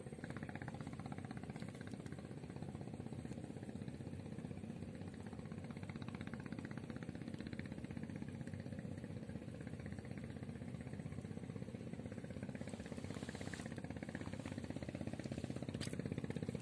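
A small engine running steadily: an even, fast putter with no change in speed, a little louder near the end.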